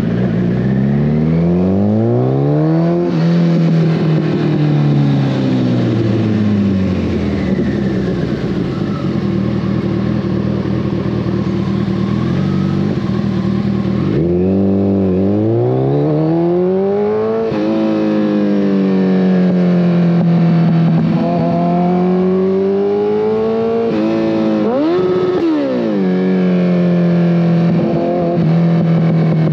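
2014 Kawasaki ZX-14R's inline-four running through a full Brocks Alien Head 2 exhaust, the revs rising and falling as it is ridden. The revs climb over the first few seconds and then fall away, hold steady, and dip and rise again around the middle and once more near the end.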